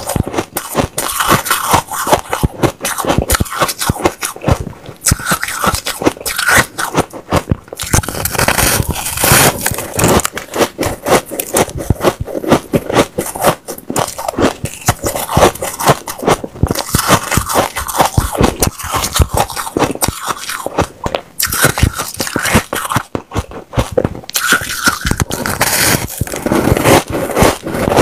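Powdery white ice being bitten and chewed: a loud, dense run of crisp crunching and crackling bites with brief pauses.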